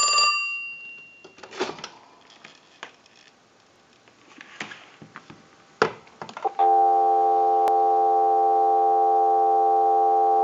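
The Mickey Mouse telephone's bell finishes its last ring and dies away over about a second, followed by a few light clicks and knocks. About two-thirds of the way in, a steady dial tone comes on and holds, picked up from the handset receiver through an amplified pickup.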